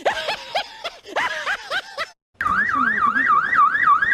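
A run of short, high-pitched squealing cries, then a brief gap and an electronic yelp siren wailing rapidly up and down, about three to four sweeps a second, until it stops abruptly.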